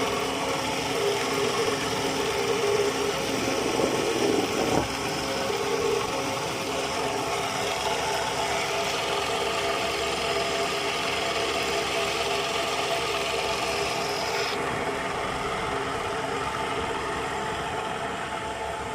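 Homemade drill press running steadily with a machine hum, with a single knock about five seconds in; the higher hiss drops away at about fourteen and a half seconds while the hum carries on.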